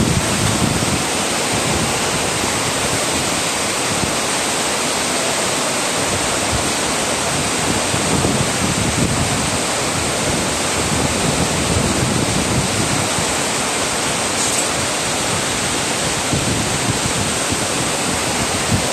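Steady, loud rushing noise of strong post-typhoon wind, buffeting the microphone in uneven low gusts, over the rushing of the high-running river.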